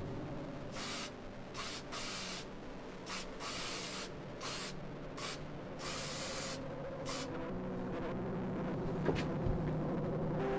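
Irregular short bursts of hiss, about ten over six seconds, some brief and some lasting half a second, over a low steady hum; a single faint click near the end.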